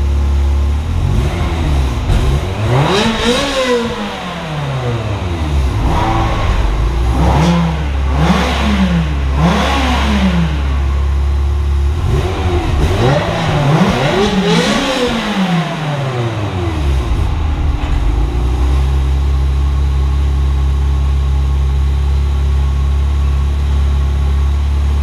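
Ferrari V8 on stock exhaust idling, then revved up and let fall back, given three quick blips, revved up once more and left to settle back to idle.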